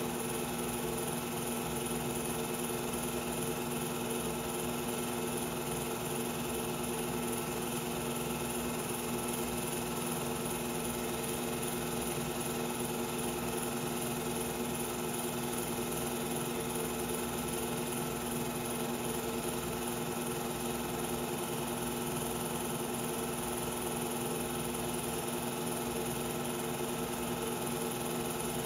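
Steady mechanical whir of a film projector running, a constant hum with even hiss and no change.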